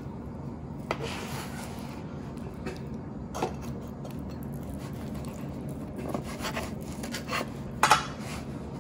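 Kitchen knife sawing through a crusty bread roll stuffed with steak, cheese and onions: scattered crackling, scraping strokes of the knife through the crust, the loudest about eight seconds in.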